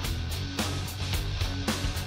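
Background music with a steady beat, just under two beats a second, over a sustained bass.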